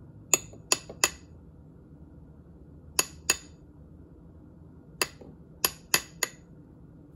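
Light metal-on-metal taps on a punch driving the rear sight's pin into an M16-style upper receiver. There are nine sharp, ringing taps in three bursts: three, then two, then four.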